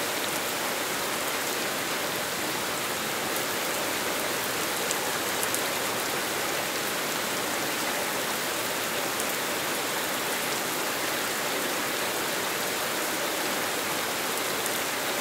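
Steady rain falling on roads and hard pavement: an even, smooth hiss with a few sharper drop ticks.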